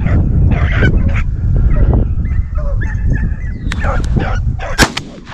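Rabbit hounds baying as they run a rabbit's trail, several calls overlapping, over a low rumble. A sharp snap sounds near the end.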